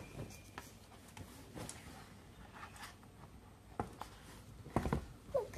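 Soft rustling and light taps of a picture book being handled and held up close to the microphone, with two louder short knocks about four and five seconds in.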